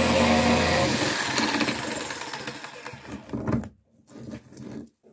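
Bosch jigsaw with a metal blade sawing acrylic glass; about a second in the motor's steady tone stops and the sound dies away over the next couple of seconds as the saw runs down. A few light knocks follow near the end as the acrylic sheet is handled.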